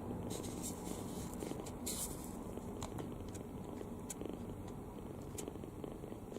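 Kitten snoring in its sleep: a steady low rumble, with a few faint ticks in the first two seconds.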